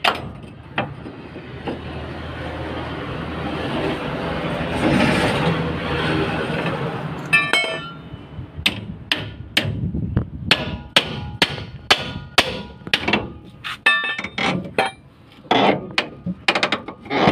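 A rising hiss of noise for about the first seven seconds, then a steady run of hammer blows on steel, about two a second, knocking loose a truck's leaf-spring fitting.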